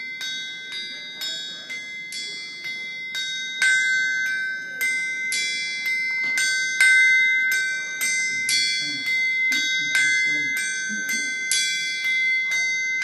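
Forged blacksmith's anvil played as a musical instrument: a rhythmic tune of hammer strikes, about three a second, each ringing on with a clear metallic note.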